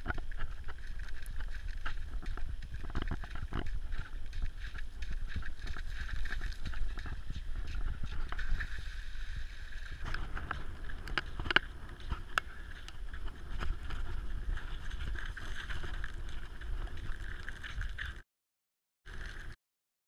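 Boots walking on thin new lake ice, with scattered sharp knocks over a steady low rumble of wind on the microphone. The sound cuts out abruptly near the end, returning for one short moment.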